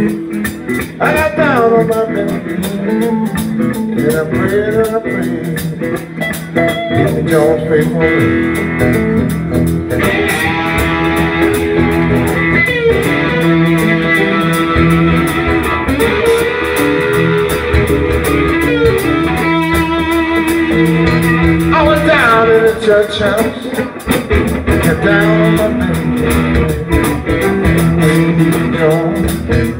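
Live electric blues band playing: electric guitars over bass guitar and drums, with sliding guitar notes near the start and again late on.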